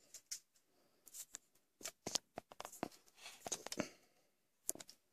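Scattered clicks, taps and brief rustles of hands handling the recording camera close to the microphone as it is set up, busiest in the middle.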